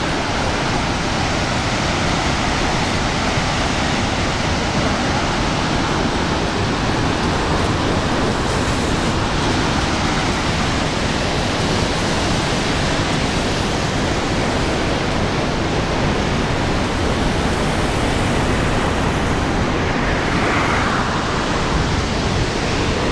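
Niagara Falls: the water of a huge waterfall plunging, a loud, steady, unbroken rush of noise.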